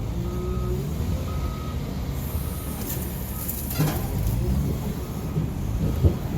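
A truck's engine running as it backs up, its reversing alarm beeping about once a second. There is a high hiss of air for about two seconds midway, and a couple of sharp knocks.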